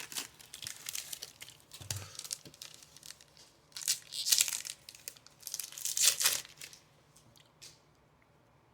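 Wrapper of a baseball card pack crinkling and tearing as it is handled and opened, in a series of crinkly bursts, the two loudest about four and six seconds in, then stopping.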